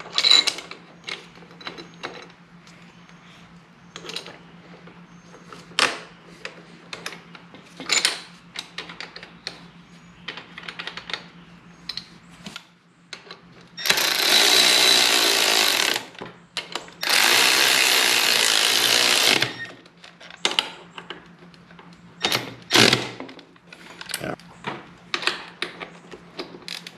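Scattered metal clinks and taps of tools and bolts, then a cordless power tool running in two bursts of about two and a half seconds each, about halfway through, driving in the motorcycle's front brake caliper bolts. More clinks follow near the end.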